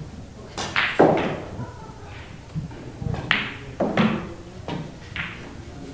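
Pool balls clacking during play: about six sharp, irregularly spaced knocks of cue and balls striking.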